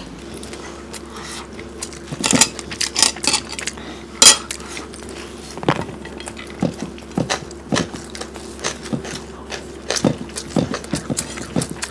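Close-miked sounds of eating rice and curry by hand: fingers mixing and scooping rice on plates, with many scattered clicks and taps, and chewing and mouth sounds. A faint steady hum sits beneath.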